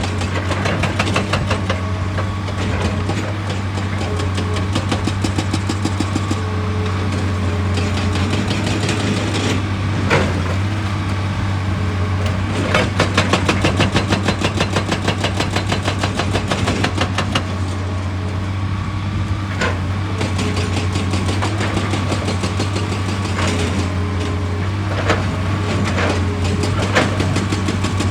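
Excavator's diesel engine running steadily with a low hum and a fast pulsing beat, with a few sharp knocks standing out over it.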